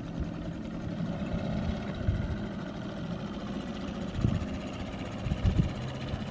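Small outboard motor on a jon boat running steadily at low speed, with a few low thumps about two, four and five and a half seconds in.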